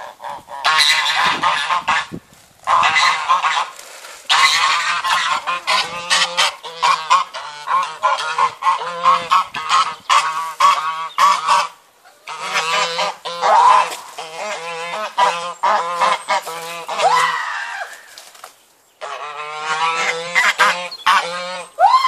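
Backyard chickens and roosters calling loudly in a dense chorus of harsh, honk-like squawks, coming in bursts with short breaks. A rising, drawn-out call comes at the very end.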